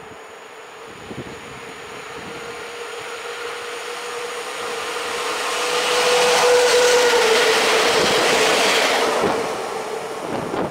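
Three coupled PKP Intercity EP07 electric locomotives running light through a station. Their rumble and rail noise swell as they approach, are loudest as they pass about six to nine seconds in, then fade, with a steady hum that dips slightly in pitch as they go by and scattered clicks of wheels over rail joints.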